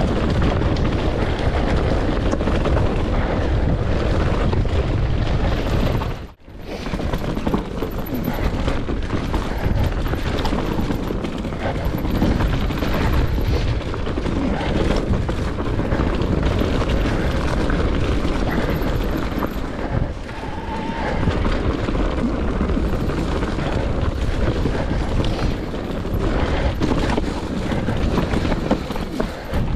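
Heavy wind buffeting on a helmet or action-camera microphone while riding a mountain bike down a rough trail, a continuous loud rush with no engine sound. It drops out sharply for a moment about six seconds in.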